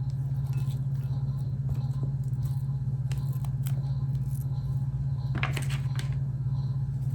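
A steady low hum, with a few light scattered clicks and scrapes of food-prep handling, such as ingredients and utensils in a bowl.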